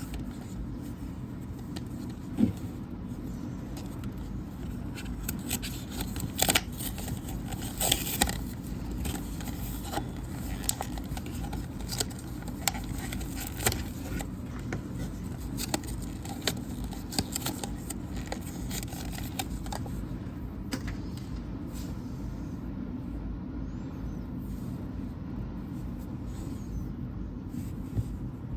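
Small objects being handled, most likely the pencil and its packaging during unboxing: a scatter of short clicks and light scrapes over a steady low rumble. The clicks are busiest in the first two-thirds and thin out near the end.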